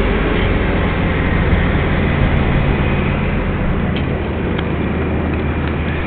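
A large engine running steadily under load, its low hum shifting slightly partway through, with a few faint clicks near the end.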